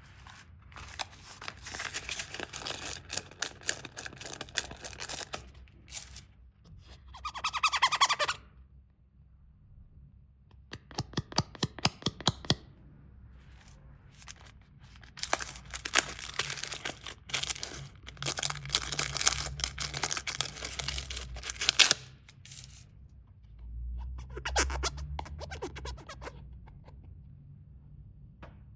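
Plastic candy wrappers crinkling and being torn open in several bursts with short pauses between them. Midway there is a quick run of sharp clicks.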